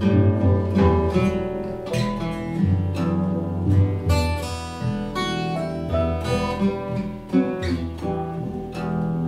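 Instrumental music led by acoustic guitar: a steady run of plucked and strummed notes that ring and fade over held low bass notes.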